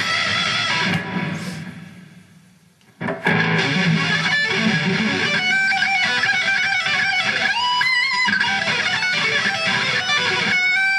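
Electric guitar: a chord left ringing and dying away, then about three seconds in a fast metal lead line with held notes and a note bent upward.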